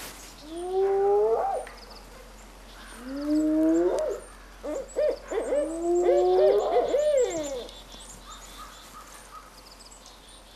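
An owl hooting: four spells of calls, each rising then dropping in pitch, with a quick run of short hoots in the middle. Faint, high, steady ticking chirps sound throughout.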